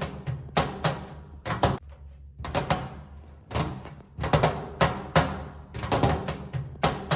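Fingernails tapping on a metal tray in quick clusters of two to four sharp taps, about one cluster a second, each followed by a short ringing fade from the metal.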